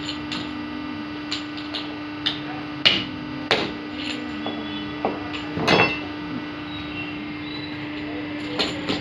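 Steady hum of a running machine, likely the hydraulic hose crimping machine's pump motor, under a scatter of sharp irregular metal knocks and clanks.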